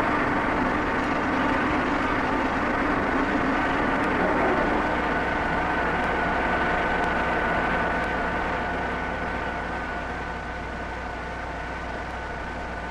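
Vertical turret lathe running: a steady machine hum with a thin, high, steady whine. A lower tone fades out about five seconds in, and the whole sound eases off over the last few seconds.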